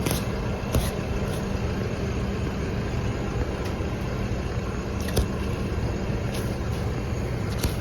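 Farm tractor engine running steadily at low revs, with a few sharp clicks over it.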